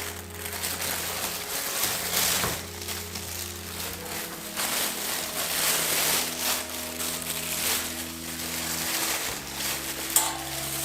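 Polythene bag crinkling and rustling in irregular bursts as it is handled, over soft background music with long held notes.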